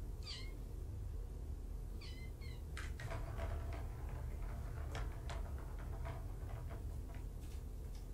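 Kitten mewing in short, high-pitched, falling calls: one near the start and two quick ones about two seconds in, with a few faint clicks after.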